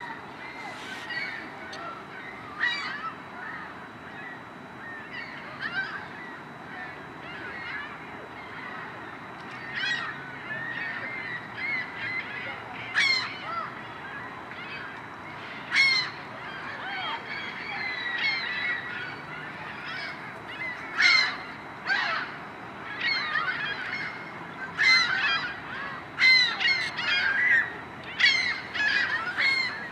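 A flock of waterbirds calling: many overlapping calls that bend in pitch, with louder single calls standing out, more and more often in the last third.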